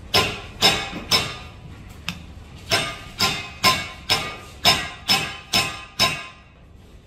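Hammer tapping a screw head, driving the screw into the plastic hub of a Rimowa suitcase wheel: about eleven sharp strikes with a short metallic ring, roughly two a second, with a pause after the first three.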